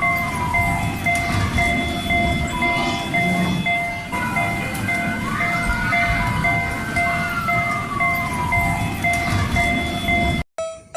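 Miniature railroad crossing's electronic warning bell ringing, a fast steady kan-kan of repeated dings. A separate tone slides down about a second in, and another rises, holds and falls from about five to nine seconds in. The sound cuts off sharply just before the end.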